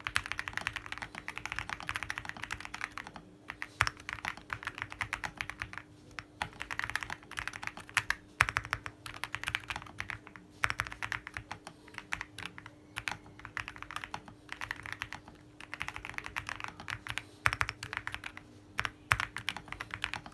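Fast typing on a Star75 mechanical keyboard with Kailh Box Mint switches and MT3 /bow keycaps. Quick runs of keystrokes are broken by short pauses, and a few strokes stand out louder.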